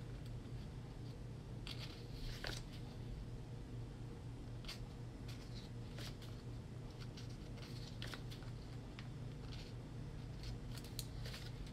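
Pages of a small paper tarot guidebook being leafed through: faint soft rustles and light paper clicks every second or so, over a steady low hum.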